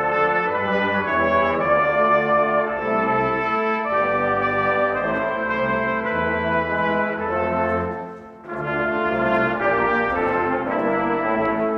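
Church brass choir of trumpets, trombones and tenor horn playing sustained chords in a chorale, with a brief break between phrases about eight seconds in.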